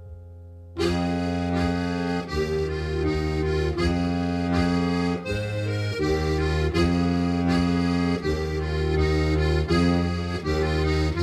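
Instrumental music led by accordion: a faint note fades out, then about a second in full accordion chords come in over a steady low bass, changing every second or two.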